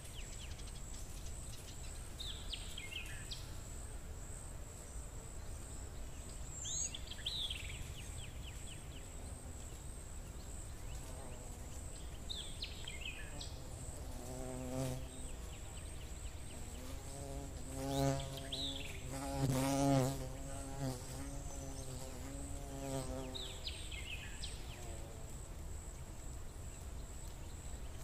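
A fly buzzing in several passes through the second half, its pitch wavering, loudest near the middle of that stretch. Under it runs a steady low hum, with short falling chirps every few seconds.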